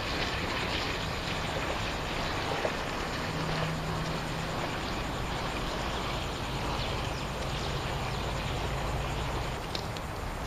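A low, steady engine hum, from a sailboat motoring past with its sails furled, over a steady broad hiss.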